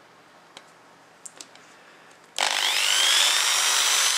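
A few faint clicks, then about two and a half seconds in a small electric drill starts suddenly and runs. Its high whine sags slightly as the bit bores a shallow pilot hole in a wooden guitar headstock for a string-guide screw.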